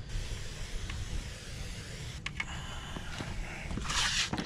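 Hand pump garden sprayer spraying weed killer, with a hiss of spray about four seconds in over a steady low rumble.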